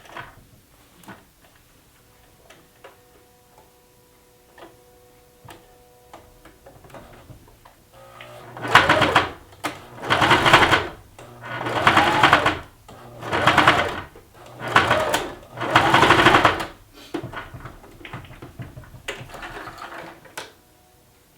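Baby Lock sewing machine stitching fabric in about six short runs of roughly a second each, with brief pauses between them, sewing the last seam of a cloth face mask. The runs begin about eight seconds in, after a few quiet clicks.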